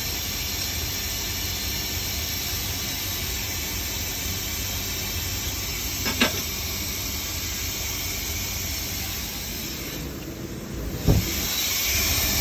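Steady hiss of air purging from a Tsugami Swiss lathe, which blows air constantly whenever the machine is on. There are two short sharp clicks, one about halfway through and one near the end.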